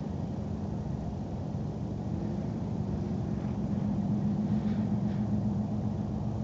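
Distant Cessna 150's four-cylinder engine and propeller humming steadily as the plane lands and rolls out. It grows a little louder about four seconds in.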